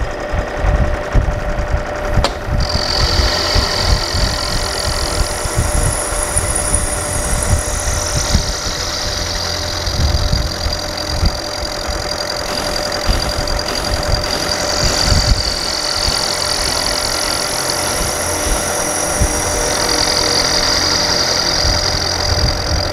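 Milling machine running an end mill through a cast iron Chevy 292 six-cylinder cylinder head, cutting out the intake port area. A steady motor hum runs under a rough low rumble of the cutter in the iron, and a high whine comes in a few seconds in and wavers in pitch as the cut goes on.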